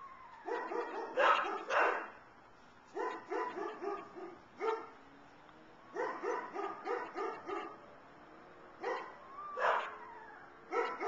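An unidentified animal giving repeated yelping cries in five bouts, each a quick run of short, pitched yelps lasting a second or two. Those hearing it call it a weird noise and cannot tell whether it is an owl or a dog in pain.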